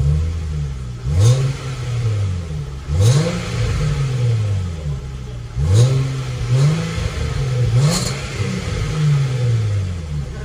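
Range Rover Velar P380's 3.0-litre supercharged V6 revved in park through a Fi Exhaust cat-back valvetronic exhaust. It gives a series of sharp throttle blips, five or so, each jumping up quickly and falling back toward idle.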